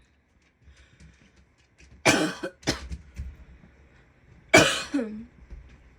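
A woman coughing: a quick run of two or three coughs about two seconds in, then one more loud cough a couple of seconds later that trails off with a short falling sound of her voice.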